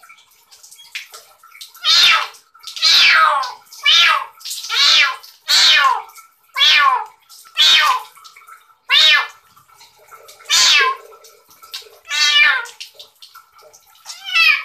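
Wet ginger kitten meowing loudly and over and over while being bathed, about eleven high calls, each falling in pitch, roughly one every second or so.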